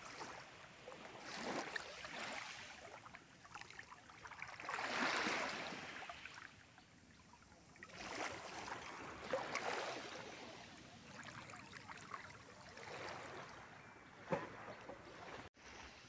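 Small waves lapping gently at the water's edge, soft washes that swell and fade every few seconds, with a brief tap near the end.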